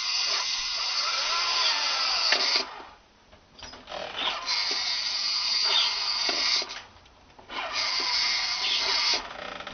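Electric motor of a battery-powered toy Volkswagen Beetle convertible whirring as it drives. It runs in three bursts with two short stops between them.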